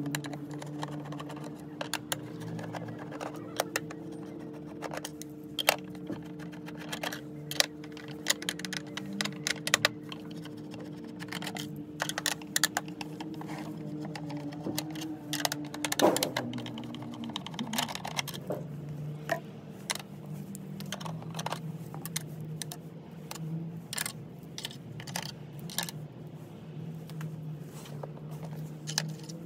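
A screwdriver is undoing screws in the plastic housing of a Pride Go Go mobility scooter battery pack, making irregular small clicks, scrapes and knocks, with one louder knock a little past halfway. A steady hum runs underneath and stops soon after that knock.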